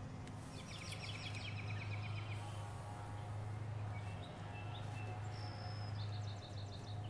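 Small birds singing in quick chirping trills, twice, over a steady low hum.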